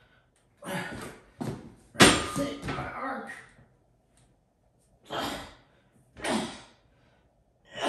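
A bench-pressing lifter's forceful breaths and grunts as he strains into his arch, in about six short bursts with pauses between; the loudest starts sharply about two seconds in.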